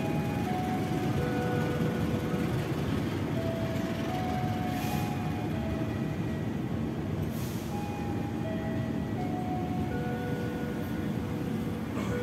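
Kahuripan passenger train rolling past the platform as it departs, a steady low rumble, with two short hisses about five and seven and a half seconds in. A simple melody of held notes plays over it.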